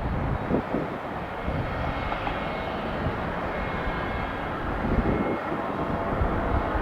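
Jet airliner engines running with a steady rumble and hiss, with a faint whine above it.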